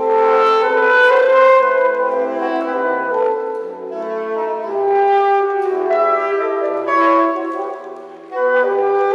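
Saxophone ensemble with soprano and baritone saxophones playing together, several held notes at once, the soprano carrying the top line. The players come in together at the start, fade briefly about eight seconds in, then come back in loud.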